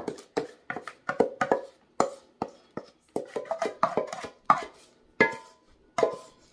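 A kitchen utensil knocking repeatedly against a dish with a short ring after each hit, two or three knocks a second, spacing out to single knocks near the end.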